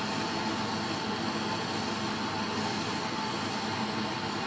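Bernzomatic trigger-start gas torch burning with a steady flame hiss as it heats a copper pipe coupling to sweat a soldered joint.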